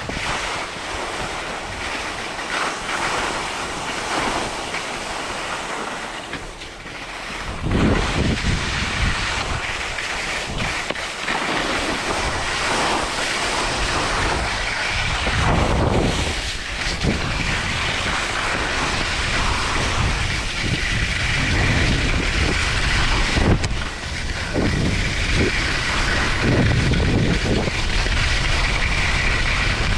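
Skis scraping and skidding over choppy packed snow on a fast descent, with wind buffeting the camera microphone. The low wind rumble gets heavier from about eight seconds in.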